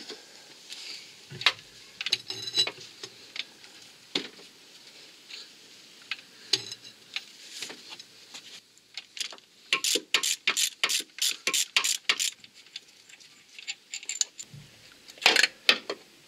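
Ratchet wrench clicking in short runs as the crankshaft pulley bolt is undone, with a quick string of clicks about ten seconds in and a few scattered metal clinks.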